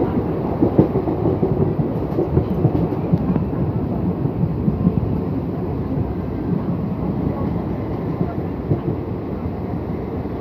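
Train running on the rails: a steady, dense rumble.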